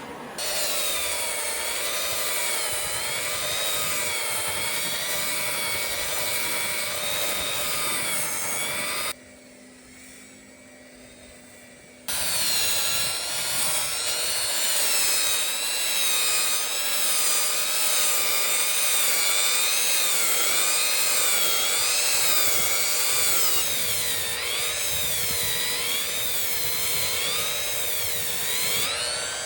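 Corded woodworking power tool running and cutting wood, its whine wavering up and down in pitch. About nine seconds in it drops out for roughly three seconds, leaving only a low hum, then runs again.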